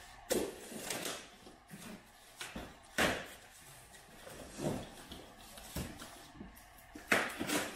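Cardboard shipping box being opened and handled on a plastic workbench: a run of scraping and rustling with several knocks as it is slid, flipped and stood on end. The sharpest knocks come about three seconds in and again near the end.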